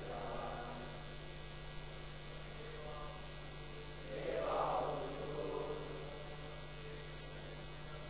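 Steady electrical mains hum from the lecture hall's microphone and sound system. Faint chanting voices swell briefly about halfway through.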